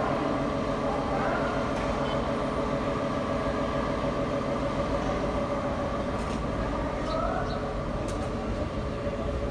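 Steady machinery hum with several held tones over a noisy background, unchanging throughout.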